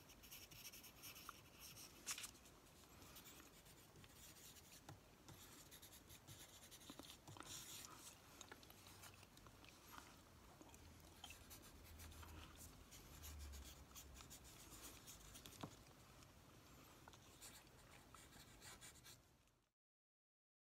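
Faint handwriting on paper close to the microphone: soft scratching strokes of the writing tip with small ticks. It cuts off to silence about a second before the end.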